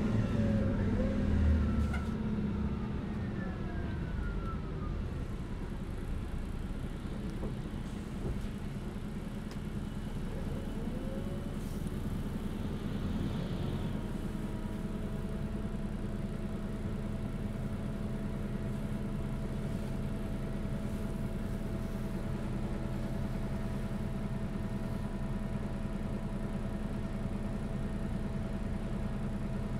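Cabin sound of a MAN NÜ283 bus under way: its diesel engine and drivetrain run with a whine that falls in pitch over the first few seconds. Then comes a steady drone, with a steady higher tone joining about halfway.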